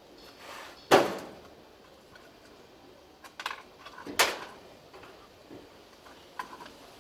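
Two sharp knocks, the first about a second in and the second a little after four seconds, with a few lighter clicks and clatter between them and near the end: hard objects being handled and set down.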